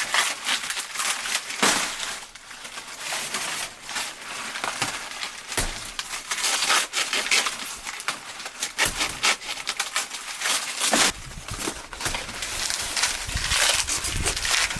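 Dry plant material, most likely corn stalks and husks, crunching and crackling with many sharp snaps, as when the plants are handled and broken during harvest. A low rumble joins in about two-thirds of the way through.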